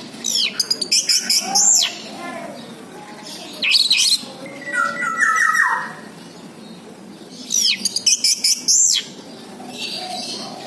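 Orange-headed thrush (anis merah) singing: loud bursts of fast, varied whistled phrases with sweeping notes, about every three seconds, including a falling run of notes about midway.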